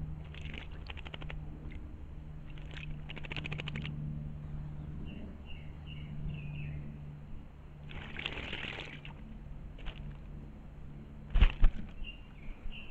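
A bird bathing in a shallow pool, with bursts of splashing as it flutters its wings in the water and short bird chirps in between. About two thirds of the way through there are two loud thumps.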